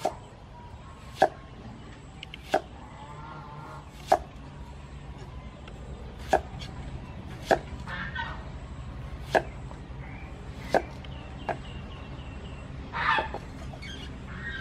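Kitchen knife chopping vegetables on a thick round wooden chopping block: single sharp knocks spaced roughly one to two seconds apart. Birds call in the background, the loudest call a little before the end.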